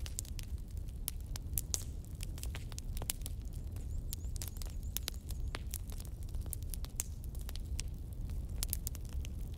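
Fire crackling: sharp, irregular pops over a low steady rumble.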